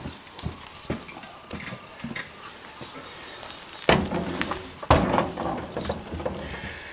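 Scattered knocks and clatter, with two loud sharp bangs about four and five seconds in, each followed by a second of rattling.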